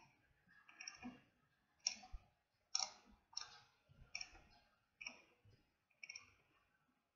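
Faint clicks of a computer mouse, about eight of them at irregular intervals of roughly a second, as a page is scrolled.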